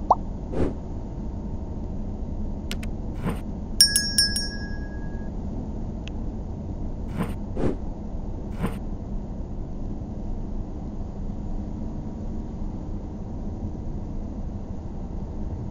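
Steady low road and engine noise heard from inside a car driving slowly, with a few light knocks scattered through it. About four seconds in, a subscribe-button sound effect: a quick run of clicks and a short bell-like chime.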